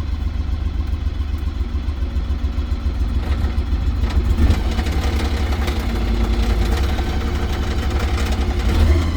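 Small gasoline engine of a mini excavator running just after a choked cold start, idling with a rattle and swelling slightly now and then.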